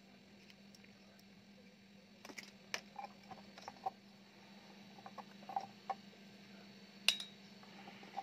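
Faint clicks and light knocks as the Icom IC-2100 transceiver's circuit board and its wiring are handled and set down on a workbench, with a sharper click about seven seconds in, over a low steady hum.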